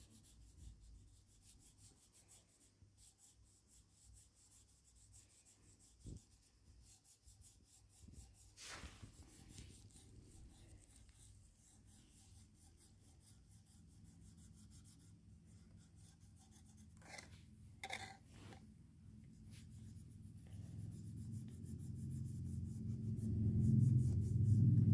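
Felt-tip marker rubbing and scratching on a flat bauble as it is coloured in, with a few brief louder scrapes. A low hum swells near the end.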